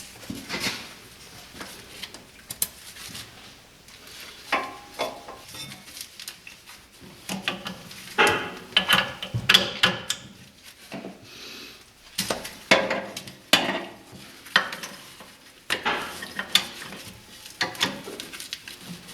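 Metal clinking and clattering at irregular intervals, in clusters, as the backhoe's two hydraulic hose quick-couplers are handled and pushed onto the tractor's Power Beyond ports.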